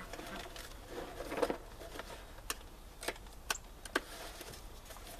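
A few light, sharp clicks spaced a half-second or so apart, after a brief soft rustle about a second in.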